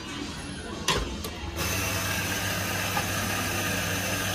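An electric espresso grinder gives a couple of clicks, then its motor switches on about a second and a half in and runs steadily with a low hum and a hiss, grinding coffee into the portafilter.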